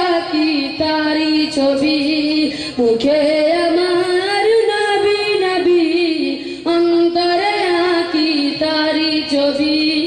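A boy singing an Islamic devotional gazal solo, one voice carrying a melody of long, wavering held notes.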